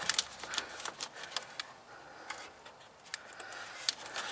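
Small irregular clicks and taps of a screwdriver working the plastic locking tabs of a wiring harness connector as it is pried loose.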